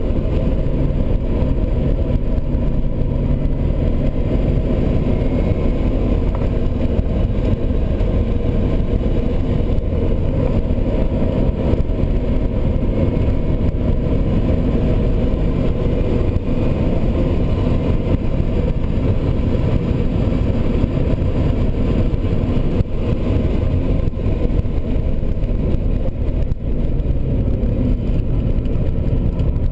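Steady, loud rumble of a Porsche's engine and road noise heard from inside the cabin at speed on a track, with no clear rise or fall in pitch.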